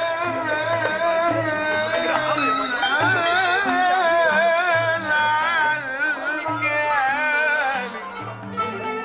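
Middle Eastern-style music: a wavering melody line with strong vibrato over a steady, pulsing low beat.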